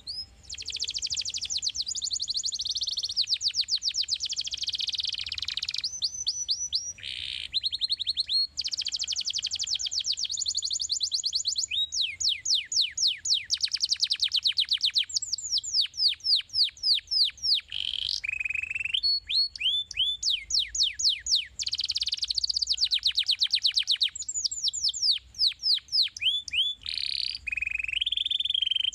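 Domestic canary singing a long, continuous song of rapid trills. It moves through runs of quick repeated notes, many of them falling in pitch, and switches to a new trill every second or two.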